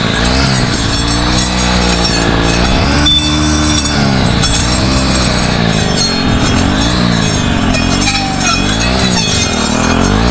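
Brush cutter engine fitted with a saw blade, revving up and falling back about once a second as the blade is swung through thick, tall brush.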